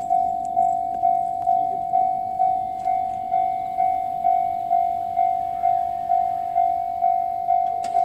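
Japanese railway level-crossing warning bell ringing: one electronic ding repeated evenly, a little over twice a second, the signal that the crossing is closed for a train.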